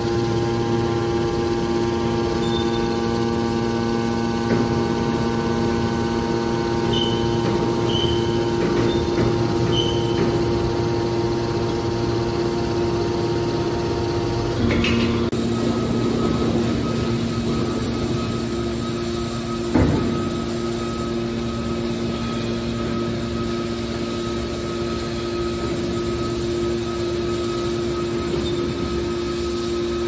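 Hydraulic power unit of a heavy-duty scrap metal baler running with a steady hum. About halfway through there is a click and the hum changes pitch as the press moves on to another stroke, and a short knock follows about five seconds later.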